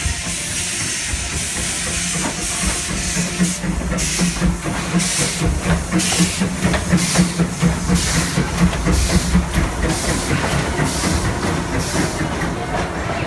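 Steam locomotive running past at close range as it pulls into the station, hissing steam from around its cylinders, with chuffs about twice a second that start about two seconds in and are loudest as it passes.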